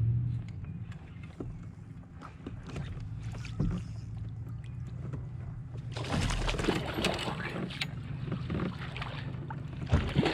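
Handling noises on a fishing kayak: a steady low hum with scattered knocks against the hull, turning into a busier stretch of clattering and water noise from about six seconds in, with a loud knock near the end.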